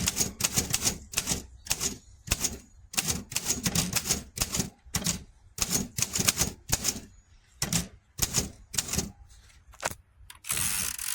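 Typing on a 1938 Royal Mercury ultra-portable manual typewriter: a run of sharp key strikes at about three to four a second with brief pauses, and a longer burst of mechanical noise near the end.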